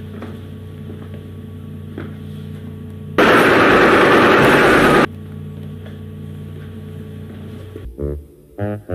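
A steady low electrical-sounding hum. About three seconds in it is broken by a loud blast of static-like noise lasting about two seconds, which cuts off suddenly. A voice starts near the end.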